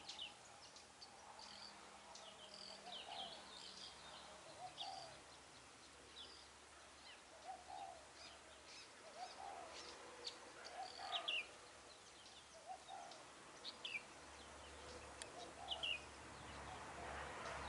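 Spotted dove cooing softly over and over, a short low coo every second or two: a decoy calling to draw wild doves in. Small birds chirp in short high notes throughout, and their sharpest chirps are the loudest sounds.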